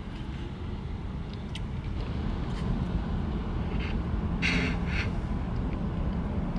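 Steady low rumble inside a car's cabin, with a brief slurping through a drinking straw about four and a half seconds in.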